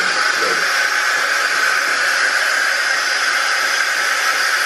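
A steady, loud hiss that holds an even level throughout, with no strokes or changes.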